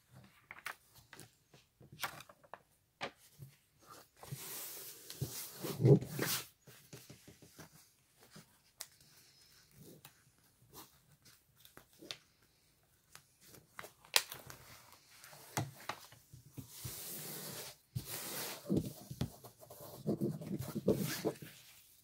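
Rustling and crinkling of a diamond-painting canvas and its plastic release sheet as they are handled and folded back, with small taps and clicks, in two louder spells.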